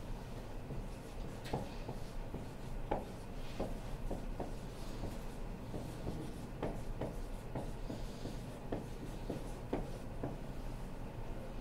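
Dry-erase marker writing on a whiteboard: a string of short, irregular squeaks and taps from the pen strokes, over a steady low room hum.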